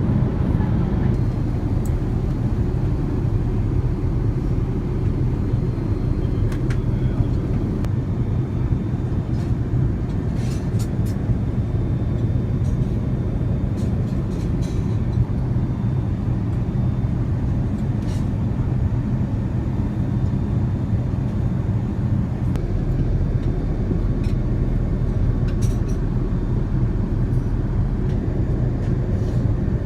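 Steady low drone of an Airbus A380 heard inside its cabin, with a few faint clicks.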